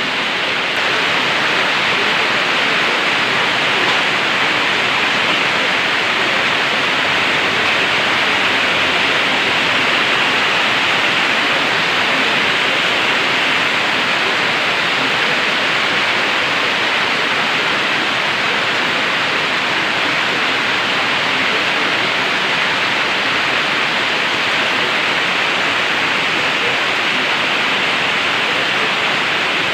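Heavy tropical-storm rain falling in a steady downpour, an even hiss with no breaks.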